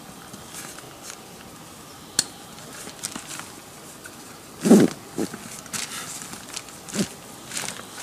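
Rustling and scattered knocks of camping gear being handled and strapped up, with one louder thump just past halfway.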